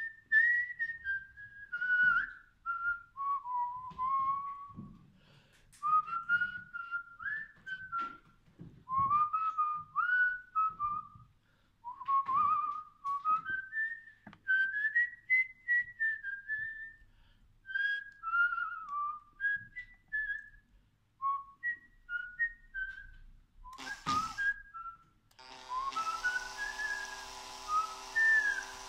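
A person whistling a slow, wandering tune with gliding notes, over soft low knocks. There is a sharp click about 24 seconds in, and near the end a steady motor hum from a cordless drill starts under the whistling.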